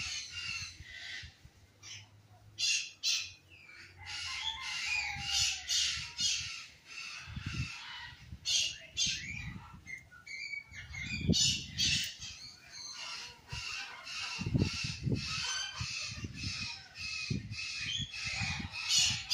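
A flock of birds calling at once, many short harsh squawks and chirps overlapping without a break. A few louder low rumbling bursts come in around the middle.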